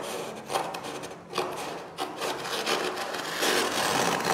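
Aluminium foil of an underfloor heating mat rustling and crinkling as it is pressed and pulled by hand, in a series of short bursts that become a continuous rustle near the end.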